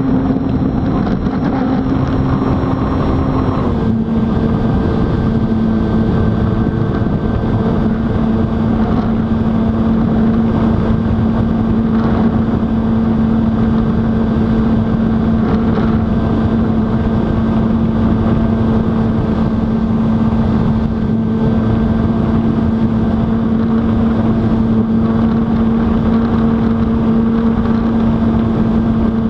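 Brushless electric motor and propeller of an FMS PA-18 1300 mm RC plane running at high throttle, heard close from the cowling as a loud, steady drone. The pitch steps slightly lower about four seconds in, as the throttle is eased back, and then holds steady.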